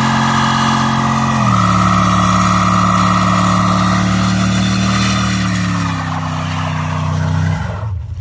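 Car engine running hard at high, steady revs, its pitch stepping down a few times and then dropping away near the end.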